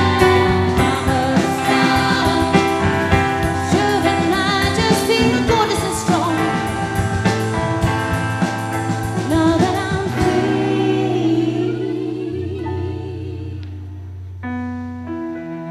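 Live alternative folk band music with singing and drums, thinning out after about ten seconds into fading held notes, then a new held string chord near the end.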